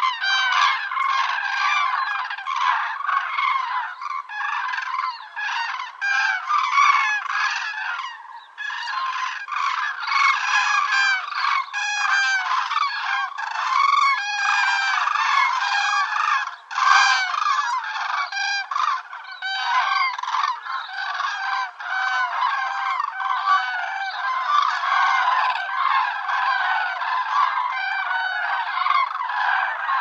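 A large flock of common cranes calling, many loud trumpeting calls overlapping in a dense, continuous chorus.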